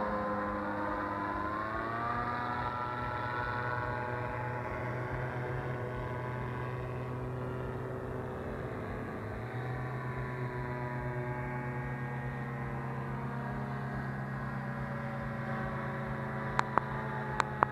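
Paramotor engine and propeller droning steadily in flight, its pitch rising about two seconds in and dipping briefly around nine seconds. A few sharp clicks near the end.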